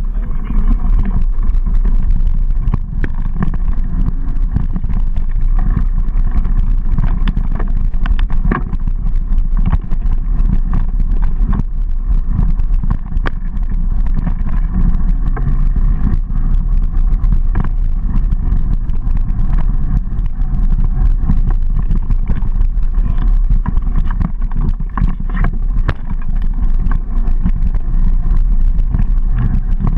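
Mountain bike riding a dirt singletrack, heard from a camera carried on the bike or rider: a loud, steady low rumble of wind and tyres on dirt, with constant clicks and knocks as the bike and camera rattle over bumps.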